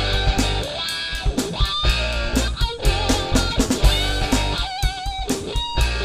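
Background rock music: electric guitar over bass and a steady drum-kit beat, with no singing.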